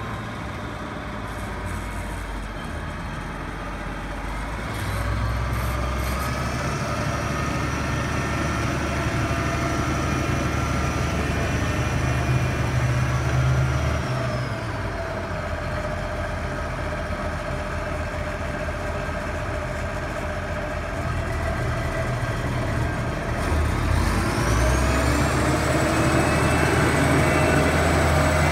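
International Harvester 3588 tractor's DT-466 six-cylinder turbo diesel running as the tractor drives. The engine revs up about five seconds in, drops back around the middle, and revs up again near the end, with a high whine that rises and falls with the revs.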